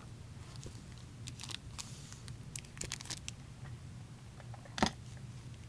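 Hockey card pack wrapper crinkling and tearing as it is opened, with a scatter of small crackles in the first three seconds and one sharper click about five seconds in.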